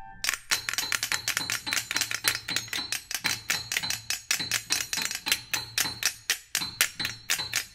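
Two flexatones and a piano playing a dense passage of dry, accented clicking and tapping strokes, about six a second in an uneven, stuttering rhythm, with a faint high tone ringing steadily underneath.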